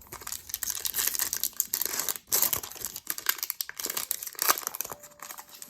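Foil Pokémon booster pack wrapper crinkling and tearing as it is handled and opened, a continuous crackle.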